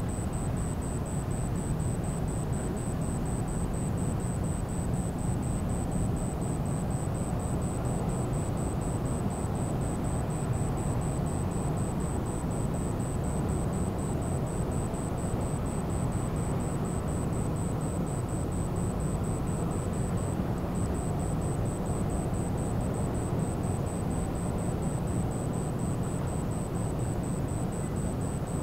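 Steady low rumble of a large car ferry's engines as it leaves port, with a fast, even high-pitched pulsing over it, about three pulses a second, that breaks off briefly about twenty seconds in.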